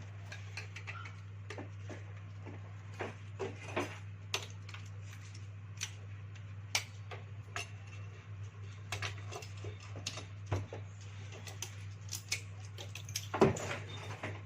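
Scattered clicks and light metallic clinks and knocks of a dive flashlight's parts and tools being handled on a workbench, with one louder knock about a second before the end, over a steady low hum.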